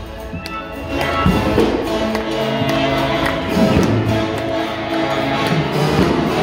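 Live brass-band music with horns, including a trombone and a tuba, over electric guitar and bass. It is quieter for the first second, then held horn notes come in and the band plays on at full level.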